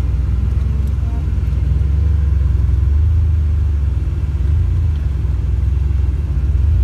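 A car driving at steady speed, its engine and road rumble heard from inside the cabin as a steady low drone.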